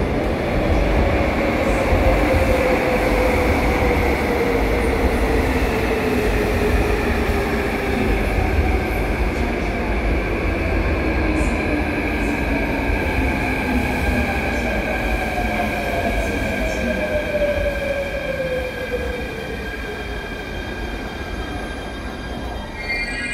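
Seoul Subway Line 2 electric train pulling into a station: wheels rumbling on the rails and traction motors whining, the whine gliding down in pitch as the train brakes. It grows quieter over the last few seconds as the train comes to a stop.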